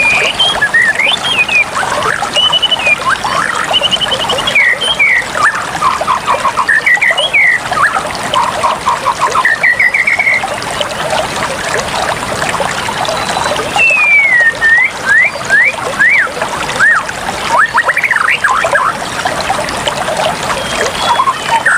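Water trickling steadily, with birds chirping over it in quick trills and rising and falling whistles; the birdsong thins out briefly around the middle.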